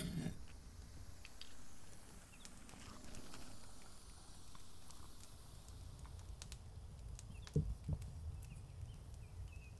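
Pot of ramen noodles boiling over a wood fire pit, faint, with scattered crackling ticks over a low rumble. Two soft thumps about seven and a half seconds in.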